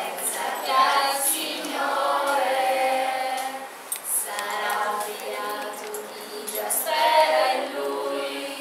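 A group of voices singing a song together, with long held notes.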